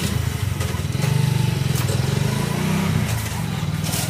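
A small engine idling steadily close by, with an even low pulsing hum. Short crinkles of a plastic bag being handled, the clearest near the end.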